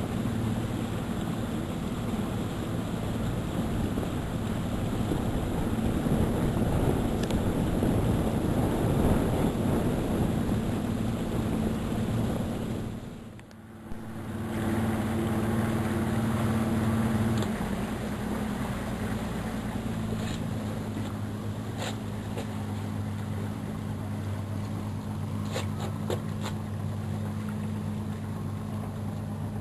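Motor engine running steadily, a low hum under rushing wind and motion noise. The sound drops out briefly about halfway through, then the engine hum continues.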